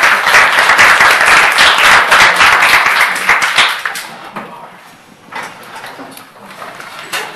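Audience applauding, loud at first and dying away after about four seconds.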